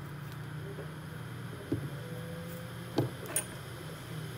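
Steady low electrical hum from bench equipment, with three light clicks about two, three and three and a half seconds in.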